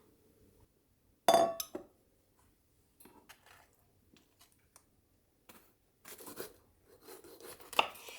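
Dishes or glassware being handled: a sharp clink about a second in, a few light taps, then a run of clinking and rustling near the end with one sharp clink.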